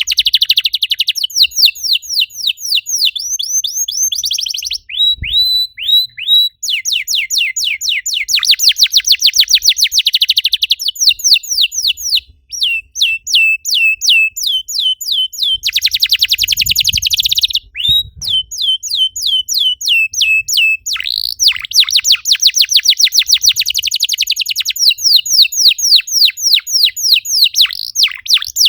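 Domestic canary singing loudly in rapid trilled tours: runs of quickly repeated falling notes that change speed from one run to the next, broken by brief pauses.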